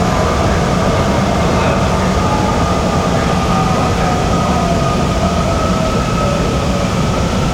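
Shenzhen Metro Line 14 train running at speed: a steady rumble of wheels on rail and running noise, with a thin whine that slowly shifts in pitch.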